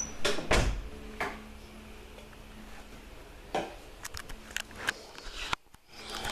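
A few scattered knocks and clicks, the loudest a dull thud about half a second in and a run of small sharp clicks near the end, over a faint low hum.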